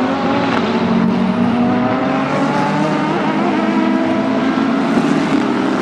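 McLaren 650S GT3's 3.8-litre twin-turbo V8 racing engine running under load, its note rising gradually as the car accelerates.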